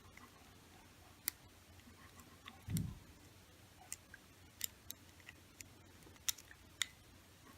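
Faint, scattered sharp clicks of a lock and lock-picking tools being handled and set up, about six in all, with one soft low thump a little under three seconds in.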